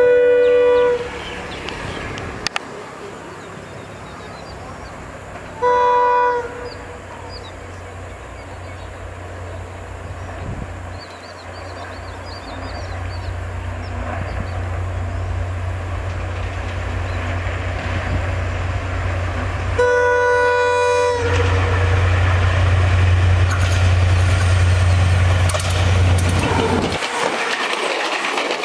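Class M11 (WDG4D) diesel-electric locomotive sounding its horn in three blasts, the third longer, while approaching. Its low diesel engine drone grows steadily louder, peaks as the locomotive passes and drops away about 27 s in, leaving the passenger coaches rolling past with wheel clatter.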